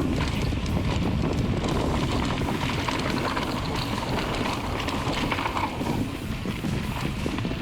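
Mountain bike rolling down a dirt forest trail: tyres crunching over dirt and roots, the bike rattling with many small knocks, and wind buffeting the microphone.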